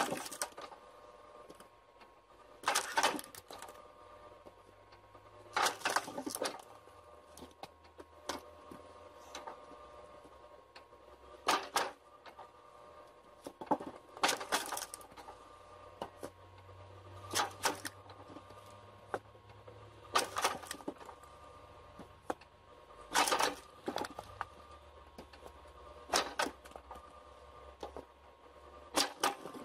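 Machinery working in a regular cycle: a short, sharp clattering burst about every three seconds over a steady mechanical hum.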